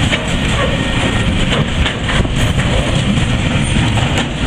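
Freight train container wagons rolling past close by: a steady loud rumble of steel wheels on the rails with a few sharp clicks.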